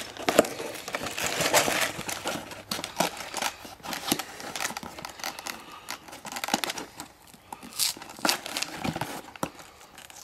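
A LEGO set's cardboard box being opened by hand: the cardboard tearing, crinkling and scraping in an irregular run of crackles and rustles.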